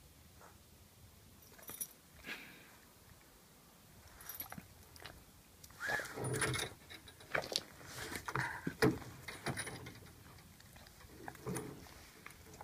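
A dog's metal tie-out chain and leash clip jangling and clinking as the chained dog shifts about, in scattered clinks and rustles that bunch together through the middle.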